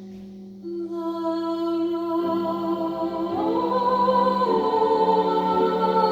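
Music: sustained wordless singing in held notes over a steady low held note, a new voice entering just under a second in and the sound swelling louder from about three seconds on.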